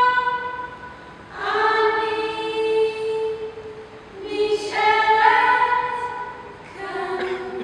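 A small group of women singing a cappella in long held notes. A held chord fades just after the start, then new phrases begin about a second and a half in, again near the middle with a rising note, and once more near the end.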